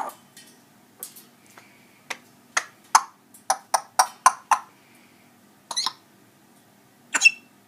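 African grey parrot making a run of short clicks and cough-like sounds, two to four a second, with a louder burst at the start and a brief squeaky call near the end.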